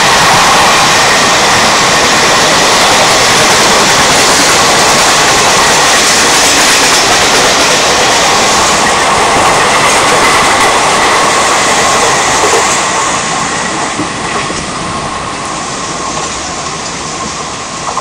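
Two trains running side by side at about 95–100 km/h: a loud, steady rush of wheels on rails with clickety-clack from the express's coaches and the EMU. The noise eases about twelve seconds in as the express's coaches clear the next track.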